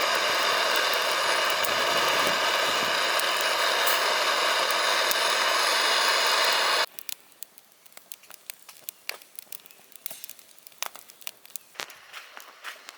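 Charcoal grilling: a loud steady sizzle that cuts off suddenly about seven seconds in. Faint scattered crackles from the charcoal fire follow.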